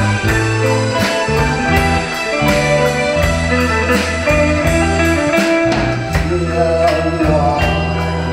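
Live band playing a song's instrumental introduction: electric guitar over bass and a drum kit keeping a steady beat.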